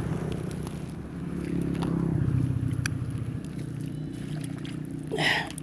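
A small engine running steadily, swelling louder around two seconds in and then easing off. A brief rushing noise comes near the end.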